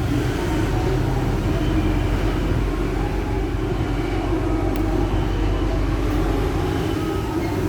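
A vehicle engine running steadily: a continuous low rumble that neither rises nor falls.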